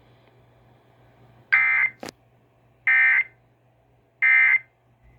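Emergency Alert System end-of-message signal over the radio: three identical short bursts of warbling digital data tone, evenly spaced about 1.4 seconds apart, marking the end of the alert. A sharp click comes just after the first burst.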